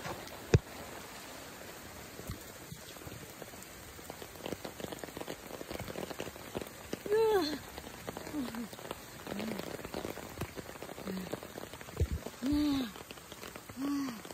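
Steady patter of rain on a wet forest path, with a few sharp clicks. From about halfway through, a series of short calls, each rising then falling in pitch, comes about once a second.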